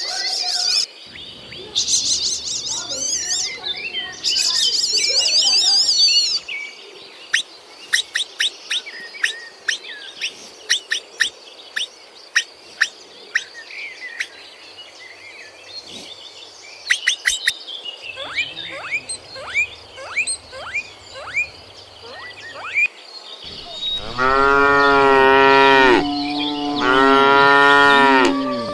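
A string of short, high bird chirps and calls, then a cow mooing twice near the end, long and loud.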